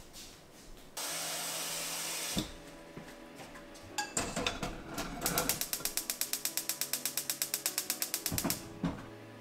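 A brief hiss, then a few knocks, then a fast, even run of mechanical clicks, about seven a second, lasting around three seconds and stopping sharply.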